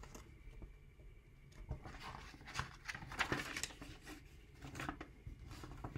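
Paper pages of a picture book rustling and swishing as they are turned by hand, a cluster of soft crackles in the middle and one more shortly after.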